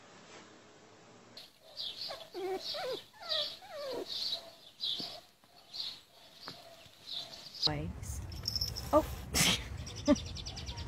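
Young pets crying: a run of short high squeals and whining calls that bend in pitch, one or two a second. After a cut, a low steady rumble of wind on the microphone with a sharp click.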